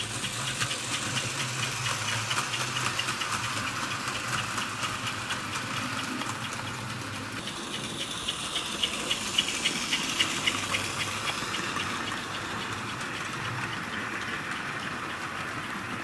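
Fleischmann HO tinplate model train running on metal track: a steady electric motor hum with a fast, rattling clicking of wheels on the tinplate rails. It swells twice, about two seconds in and again around ten seconds, as the train passes close.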